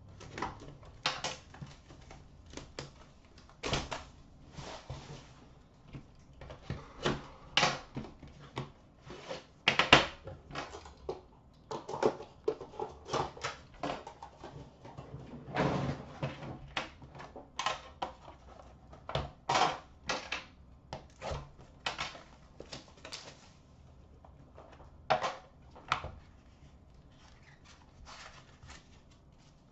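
Handling noise from a trading-card box being unwrapped and opened: plastic wrap crinkling and tearing, then the box's lid and inner tray scraping and clicking as they slide apart. Irregular small knocks and rustles, with a few louder clicks.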